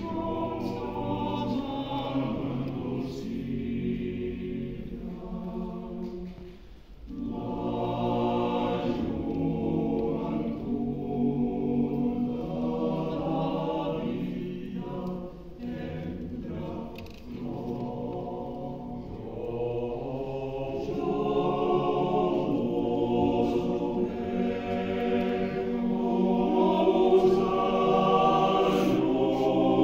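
Choir singing in sustained, held phrases, with a brief pause for breath about seven seconds in.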